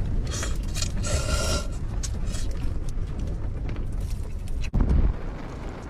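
Strong gale wind buffeting the microphone as a deep, steady rumble, with a brief hiss about a second in and a louder gust near the end.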